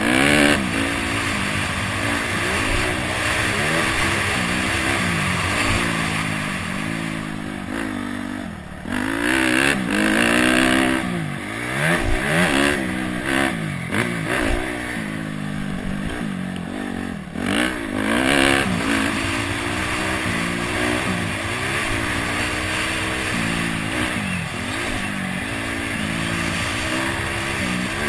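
Honda CRF250X's single-cylinder four-stroke engine being ridden hard, revving up and falling back again and again, with brief drops in revs and surges in between.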